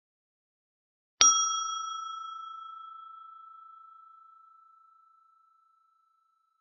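Small brass bell struck once about a second in, ringing out with one clear tone that slowly fades away over several seconds.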